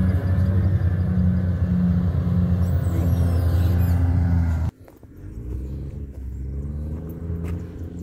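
Diesel engine of a motor grader running steadily under load as it pushes soil with its blade. It cuts off abruptly a little over halfway through, and a quieter engine sound with a slowly wavering pitch follows.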